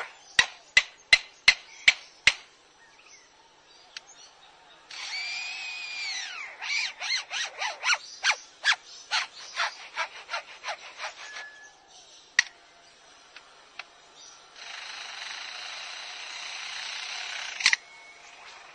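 Lyrebird mimicking construction-site sounds. It opens with about six sharp knocks, then a power-tool whine that rises and falls. A run of rapid clicks at about four a second follows, and near the end a steady drill- or saw-like rasp that stops with a sharp crack.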